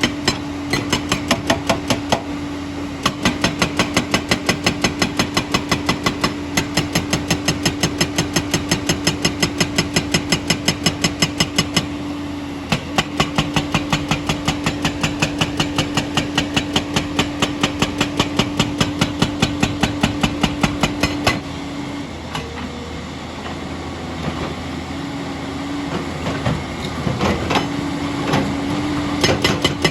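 Hydraulic rock breaker on a JCB excavator hammering stone with rapid, evenly spaced blows over the steady running of the machine's diesel engine. The hammering stops briefly twice, then pauses for several seconds about two-thirds of the way through while the engine keeps running, and resumes near the end.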